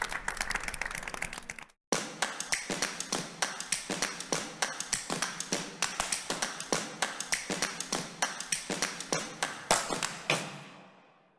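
Audience applause that cuts off abruptly about two seconds in. It is followed by a steady run of sharp taps, about four a second, which fade out near the end.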